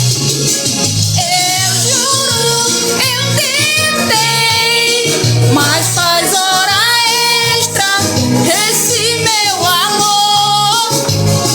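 Recorded Brazilian pop song: a woman sings a melody over a steady beat with pulsing bass and a shaker.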